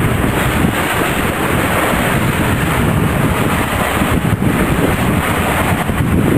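Boat engines running under way, with wind buffeting the microphone and water rushing in a churning wake; a loud, steady rumble.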